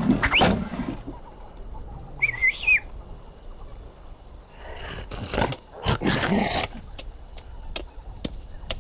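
Cartoon sound effects over a quiet outdoor ambience. Loud animal-like cries die away in the first second, then a short bird chirp sounds. After that come a few short rustling hits and a run of sharp clicks near the end.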